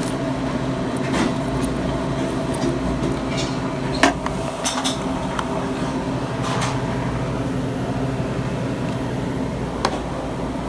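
A commercial reach-in refrigerator's refrigeration system running with a steady mechanical hum. A sharp knock comes about four seconds in and a lighter click near the end.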